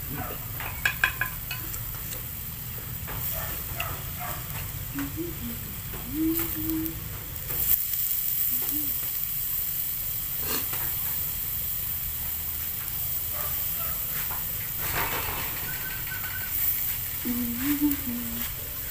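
Pork and broth sizzling steadily on a mookata grill-and-soup pan over a gas burner, with scattered clicks of chopsticks against the pan and bowl. Two short low hums are heard, one a few seconds in and one near the end.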